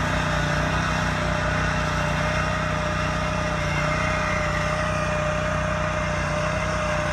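Engine of a biochar pellet spreading machine running steadily as it drives and spreads, with a steady whine over the engine note.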